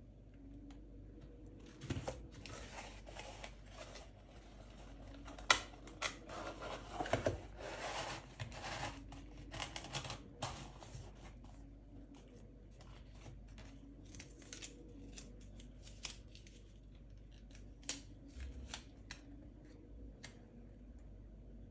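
Kraft cardboard mailer box being closed by hand over a candle wrapped in honeycomb packing paper: flaps folded and tucked in with paper rustling, scraping and sharp clicks, the loudest about five and a half seconds in. After that come lighter taps and rubbing as the closed box is handled and a sticker pressed on.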